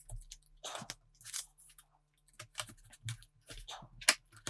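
Irregular clicks, snaps and short scrapes of a laptop's bottom cover being pried and lifted away from the chassis by hand.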